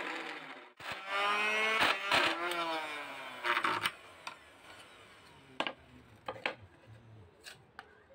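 Router motor under a homemade router table winding down, starting up again about a second in, then coasting down to a stop a little before halfway. After that come a few light clicks and knocks of wood being handled.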